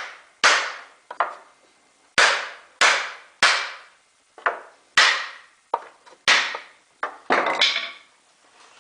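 A mini sledge hammer strikes a block of 2x4 held against a wooden pallet's beam, about ten sharp blows in uneven groups, to knock a plank loose. Near the end comes a longer, rougher sound.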